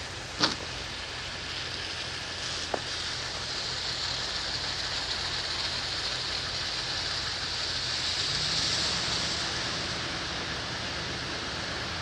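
Car tyres hissing on a wet, slushy road, swelling as a car passes about eight seconds in. Two sharp clicks come in the first three seconds, the first the loudest.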